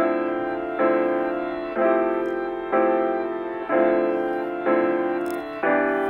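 Background piano music: a chord struck about once a second, each fading before the next.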